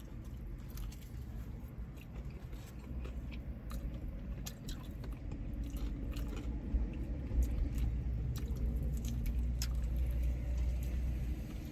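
Close-up biting and chewing of Popeyes fried chicken, with small crunches and mouth clicks scattered throughout. A steady low rumble runs underneath and grows a little louder in the second half.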